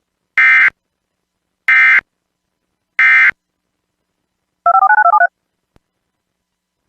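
Three short bursts of Emergency Alert System digital data tones (the SAME end-of-message code), each about a third of a second long and evenly spaced about a second and a quarter apart, marking the end of the alert. Near the end a brief, fast warble of two alternating tones follows.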